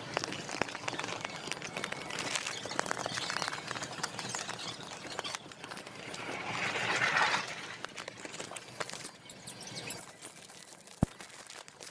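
Paper blind-box package being handled: scattered taps and clicks with rustling, a longer, louder rustle about six seconds in, and a single sharp click near the end.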